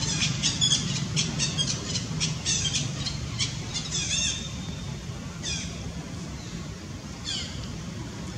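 A quick run of short, high-pitched chirping and squeaking animal calls that thins out after about four seconds to a few single falling calls, over a steady low hum.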